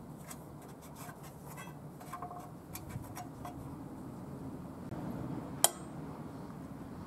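Light metallic clicks and clinks as a starter rope is wound onto the pulley of a Daikin A40 air-cooled engine. About five and a half seconds in comes one sharp, ringing metallic click.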